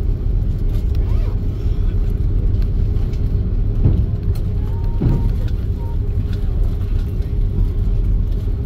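Airbus A330 cabin noise as the airliner taxis after landing: a steady low rumble from the engines with a constant hum.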